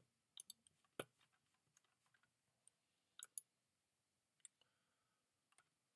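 Faint computer mouse clicks in near silence: a few single clicks and a couple of quick double clicks, scattered a second or so apart.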